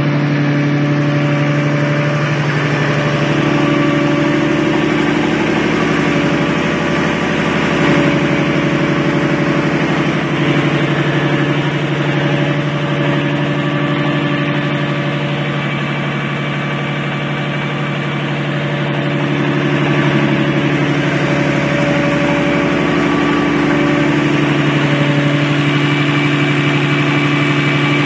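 Nissan RB26DETT twin-turbo straight-six idling steadily, with a few slight rises in speed. It is making a noise that the owner finds strange and has not identified.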